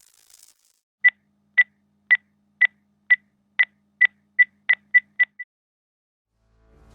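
A series of eleven short electronic beeps, all at the same high pitch, about two a second at first and coming faster near the end.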